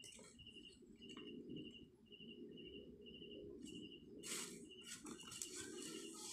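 A cricket chirping steadily, about two short, even chirps a second at one high pitch. There is faint handling noise, with a soft rustle or knock about four seconds in.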